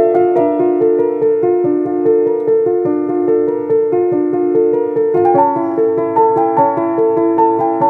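Background music: piano or electric-piano melody of repeated notes in a steady rhythm, rising to a higher register about five seconds in.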